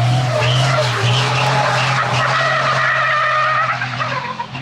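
Racing car engine running hard at nearly steady revs, with tyres squealing for about a second and a half near the middle.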